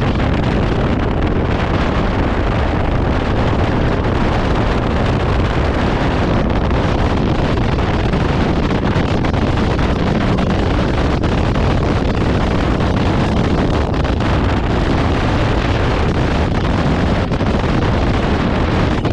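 Steady wind rush on the microphone of a camera riding on a moving Honda motorcycle, mixed with the bike's engine and road noise.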